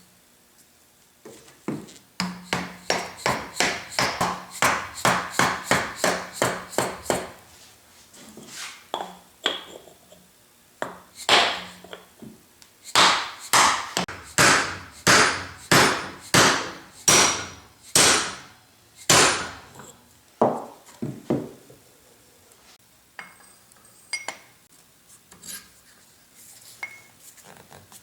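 Hammer tapping metal parts onto the shaft of a planer's in-feed roll, such as seating a bearing race. There are two runs of strikes, each ringing briefly: a quick run of about three taps a second, then after a pause a slower run of harder blows, then a few light taps.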